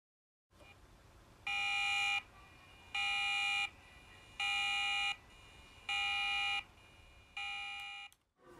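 Electronic warning beeper in a railway station sounding five evenly spaced beeps. Each beep is a bit under a second long and they come about a second and a half apart, over a low steady hum.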